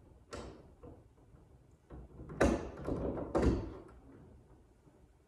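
Hard knocks and clunks as an aftermarket rear wing on its uprights is handled and seated against the ducktail base of the car: one light knock near the start, then three louder ones about half a second apart near the middle.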